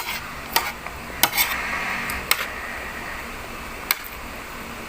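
Cutlery clinking against plates during a meal: sharp, irregular clicks, about seven in a few seconds.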